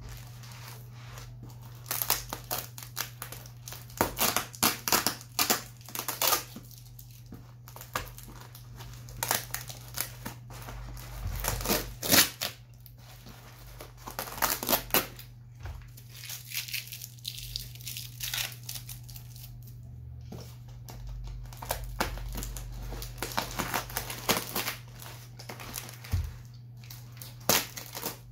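Green plastic wrapping crinkling and brown packing tape tearing as a parcel is cut open with scissors, in irregular bursts over a steady low hum.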